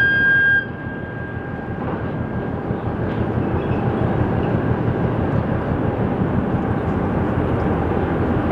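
A tug's whistle blast, one steady high tone that cuts off about half a second in, over a steady low rumble of tugboat engines pushing the container ship and container terminal noise.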